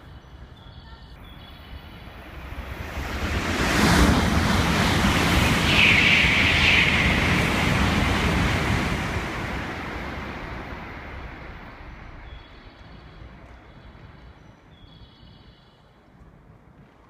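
Shinkansen bullet train passing through a station at close to 300 km/h without stopping: a rush of air and rolling noise builds from about three seconds in, hits suddenly as the nose arrives, stays loud for about five seconds as the cars sweep past, then fades away over several seconds.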